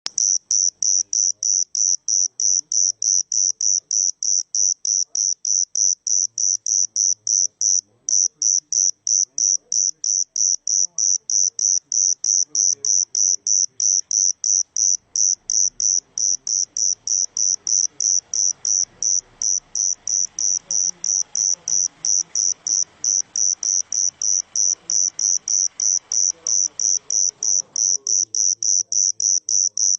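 A cricket chirping loudly and steadily, a high-pitched chirp repeated about three times a second without a break.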